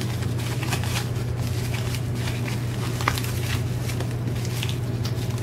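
Thin plastic wrapping crinkling and rustling in irregular bursts as it is unwound by hand, with a sharper tick about three seconds in, over a steady low hum.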